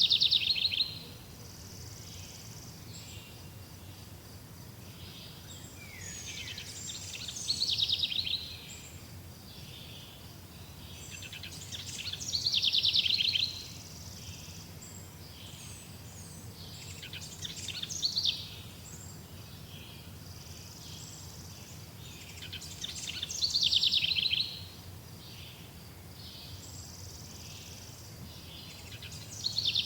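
A songbird singing the same short, high-pitched phrase over and over, each phrase building up for about a second and then stopping, about every five to six seconds. A steady low background hum runs underneath.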